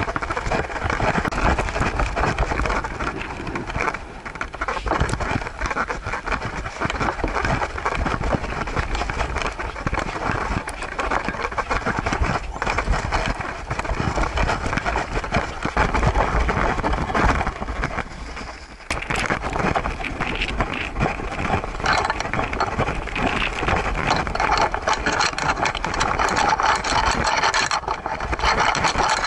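Handling noise from a camera strapped to a walking Siberian husky's back: steady scraping and rustling as the mount is jostled against the harness and fur with each step, over a low wind rumble on the microphone. The noise drops briefly about 18 seconds in.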